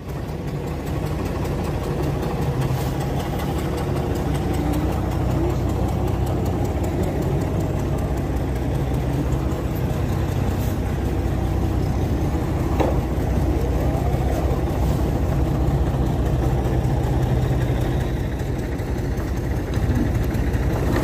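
Diesel engine of a Mercedes-Benz O305 city bus idling steadily, with one sharp click a little past halfway.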